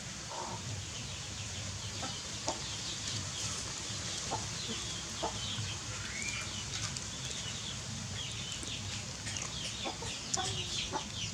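Chickens clucking, with many short high chirps throughout, over a low steady hum.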